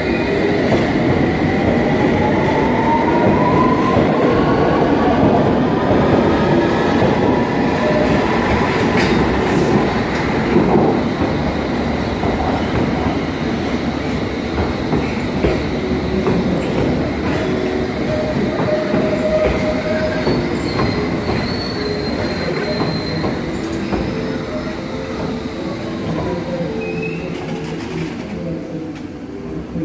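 London Underground S Stock train running along the platform. Its electric traction motors whine, rising in pitch over the first ten seconds as it gathers speed, over a steady rumble of wheels on the rails.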